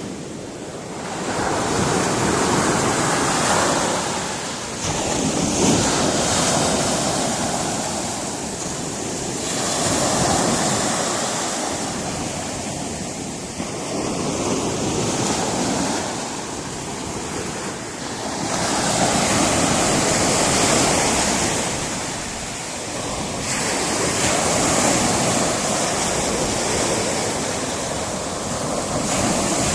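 Sea surf breaking on a rocky shore, waves surging in and washing back about every four to five seconds.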